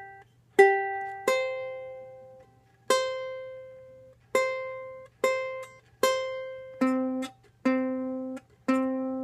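Six-string koa tenor ukulele being tuned: single strings plucked one at a time, about nine plucks, each left to ring and fade while the pitch is adjusted. The last few plucks sound an octave pair of strings together. The strings are new and still stretching out of tune.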